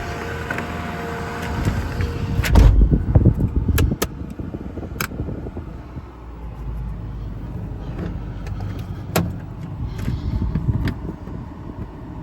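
Handling noises around a truck: a loud, low rumbling thump about two and a half seconds in, then scattered sharp clicks and knocks over a low steady rumble.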